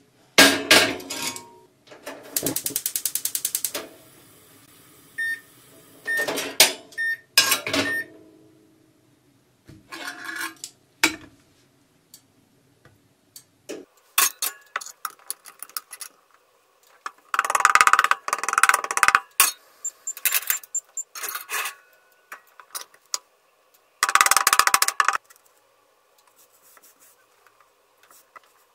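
Cast-iron tamagoyaki pan clanking and scraping as it is lifted and set down on a gas stove's metal grate, with a burst of rapid, even clicking for about two seconds near the start. Later, cotton fabric rustles as it is folded and smoothed by hand on a wooden board.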